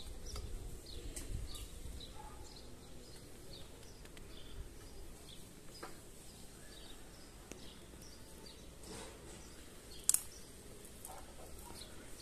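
Outdoor ambience with scattered faint bird chirps throughout and a low rumble in the first couple of seconds. A single sharp click about ten seconds in is the loudest sound.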